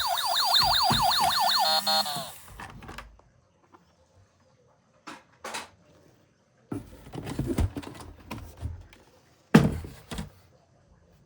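Toy emergency vehicle's electronic siren sounding a fast up-and-down yelp for about two seconds, then cutting off. Afterwards a few scattered clicks and knocks, the sharpest one near the end.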